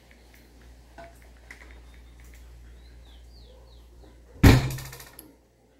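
Faint scraping and small clicks of a spoon scooping passion fruit pulp into a plastic blender jug over a low hum, then a sudden loud knock with a brief rattle about four and a half seconds in.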